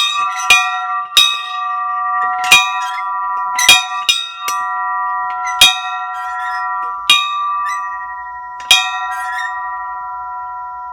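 A bell struck about nine times, the strokes coming further apart, each strike adding to a steady ringing that fades away after the last stroke near the end. It is rung as a camp call to meals and activities.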